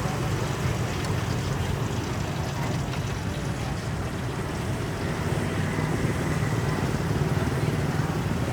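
Steady low rumble with a hiss: the background noise of a busy outdoor street-food market.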